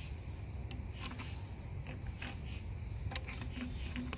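Channel-lock pliers working a radiator hose clamp, giving a few sharp metal clicks and scrapes as the jaws keep slipping off the clamp's ridges.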